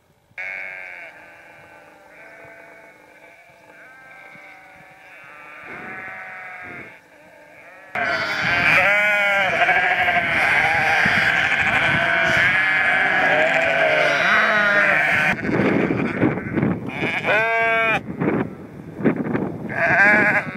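A flock of sheep bleating, ewes and lambs calling over one another. Faint at first, the bleating turns into a much louder, dense chorus about eight seconds in, then thins to a few single bleats near the end.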